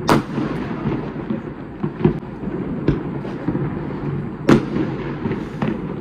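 Fireworks going off across the city: a series of sharp bangs, the loudest right at the start and about four and a half seconds in, over a continuous rumble and crackle of many more distant fireworks.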